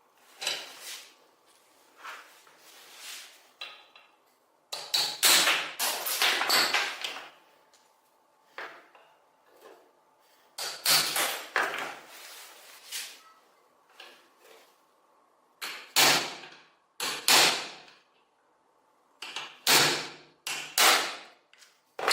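Intermittent hand-work noises: a few seconds of scraping or rubbing about a quarter of the way in, then a series of short, sharp knocks and clanks spaced a second or two apart.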